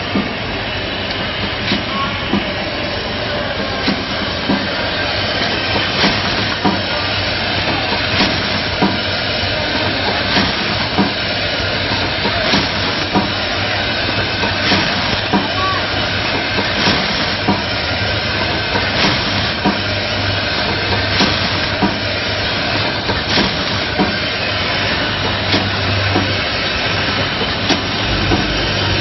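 Rotary premade-pouch filling and sealing machine running: a steady hum and hiss with a pair of sharp clacks about every two seconds as the machine cycles from station to station.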